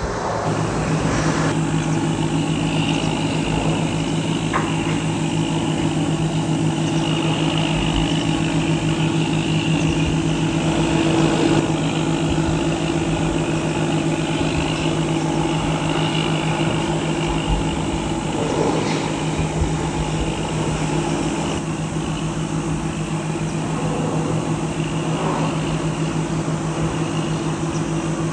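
A steady engine drone: a constant low hum with an overtone, and above it a higher whine that swells and fades every few seconds.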